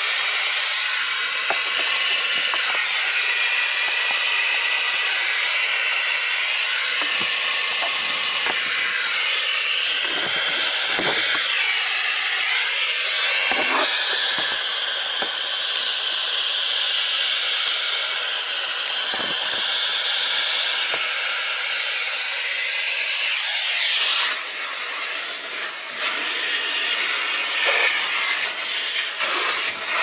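Numatic Henry cylinder vacuum cleaner running, its hose nozzle sucking air over a fabric car seat with a steady rushing hiss and a few short scrapes of the nozzle on the cloth. Near the end the rush dips and turns uneven.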